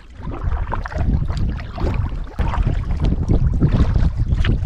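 Kayak paddling: paddle blades splashing and dripping in lake water in irregular strokes, over a heavy low rumble of wind buffeting the microphone.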